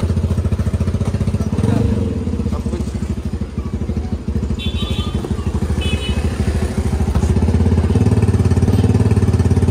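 A small engine idling with a rapid, even low throb, louder in the last few seconds. A couple of short high chirps sound about halfway through.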